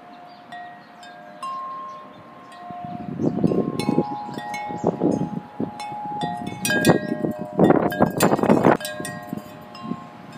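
Metal tube wind chime ringing in the wind: at first a few long ringing tones, then from about three seconds in the tubes strike each other more often and louder, several notes overlapping, with bursts of low rushing noise underneath.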